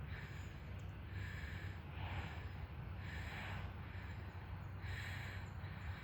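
Heavy breathing of a person walking briskly, a breath puffing out about once a second, over a low steady rumble.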